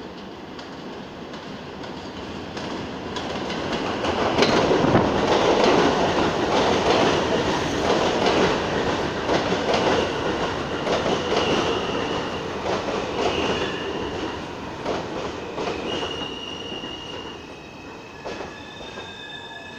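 A New York City Subway train pulling into the station. The wheels clatter over the rail joints, loudest about five seconds in, then high steady metallic squeals sound as it slows to a stop.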